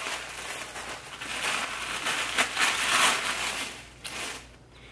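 Clothing being handled close to the microphone: a crinkly rustle of fabric and packaging that swells in the middle and dies away near the end.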